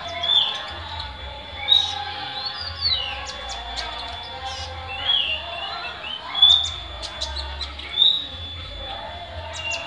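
Caged olive-backed sunbird calling: a series of short, sharp, high chirps, the loudest about every one to two seconds.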